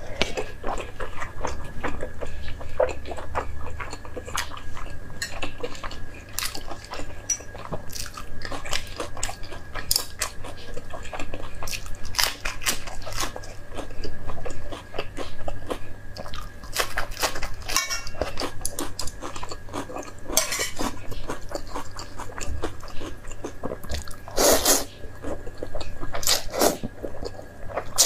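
Close-miked mukbang eating sounds: chewing and biting food, with metal chopsticks clicking against a metal bowl. Near the end there is a longer slurp of noodles.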